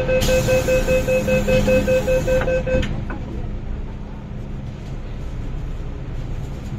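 Door-closing warning beeps of an MTR Island Line M-Train, a rapid pulsed beep about four times a second, ending about three seconds in as the doors shut with a knock. After that only the train's quieter steady rumble with a low hum.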